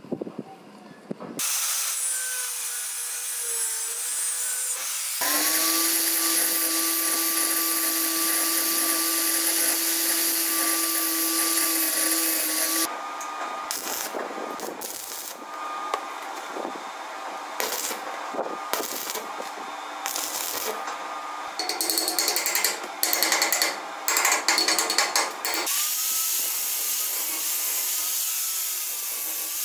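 A power tool runs at a steady pitch for several seconds, then an electric arc welder crackles on steel for several seconds in uneven bursts. Near the end an angle grinder's disc grinds down a fresh weld on steel with a wavering whine.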